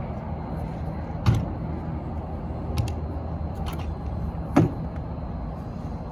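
Four sharp clicks or knocks spread over a few seconds, the first and last loudest, over a steady low hum; no grinder motor is running.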